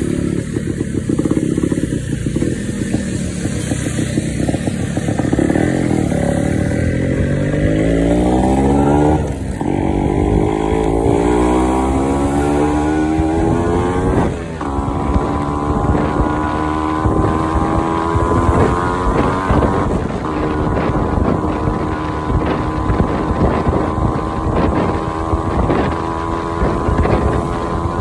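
Yamaha RX135 two-stroke single-cylinder engine pulling away and accelerating up through the gears. The pitch climbs, dips briefly at each upshift about nine, fourteen and twenty seconds in, then holds nearly steady at cruising speed.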